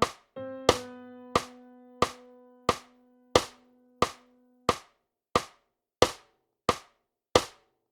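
Metronome clicking steadily at about 90 beats a minute. Under the first half a single held note of the score playback sounds on and stops about halfway through, leaving the clicks alone.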